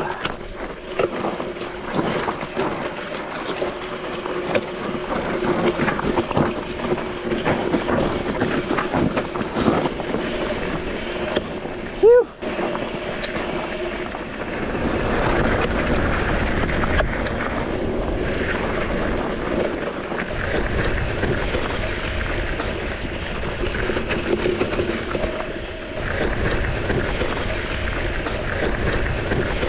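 Mountain bike descending a rough, rocky trail: tyres rattling and crunching over loose rock with the bike's chatter, and wind buffeting the microphone, heavier in the second half. About twelve seconds in there is one brief, loud squeal that rises in pitch.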